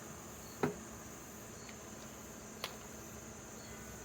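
Two short hard clicks about two seconds apart as an 18V RYOBI ONE+ 8 Ah 21700 battery pack is handled and fitted onto a RYOBI compact impact wrench. A steady, high insect-like chirring runs underneath.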